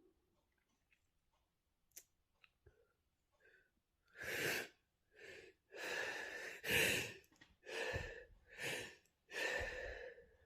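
A person breathing hard: about seven loud, breathy gasps and breaths in quick succession, starting about four seconds in, as a sneeze builds. A few faint clicks before them.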